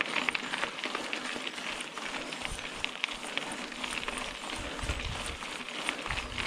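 Mountain bike riding a dirt singletrack trail: a steady crackle of tyres over dirt and stones with many small clicks and rattles, and a few low thuds.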